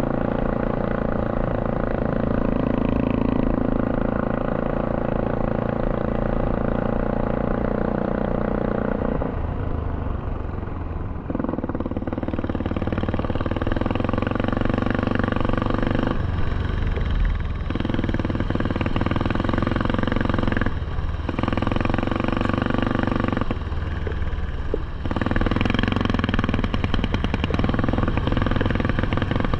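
ATV engine running under throttle, close up, with several brief drops in the note where the throttle is let off or a gear is shifted before it pulls again.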